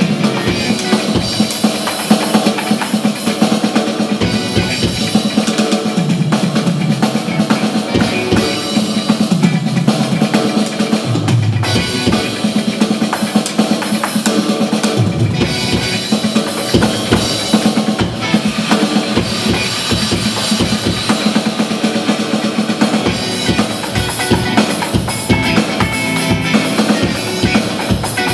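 Drum solo on an electronic drum kit: fast, dense hits of kick, drums and cymbals from its sound module, with an electric guitar playing along underneath.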